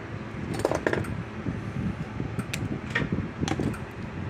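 A few light clicks and rustles of wires and hand tools being handled on a workbench, loudest about a second in, over a steady fan-like hum.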